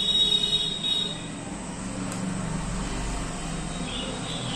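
Pliers working at the crimped metal tabs of a rotary potentiometer's casing to pry it open. A thin high squeal sounds in the first second, and a low rumble follows through the middle.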